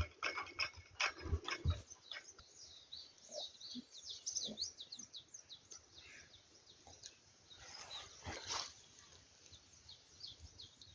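Small birds chirping: a quick run of short, high chirps in the middle, fainter toward the end. A few brief rustling or knocking noises come near the start and about eight seconds in.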